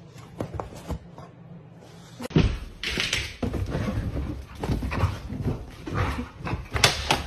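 Dogs at play: after a quiet start, a dense run of short, irregular dog noises and scuffling begins about two seconds in.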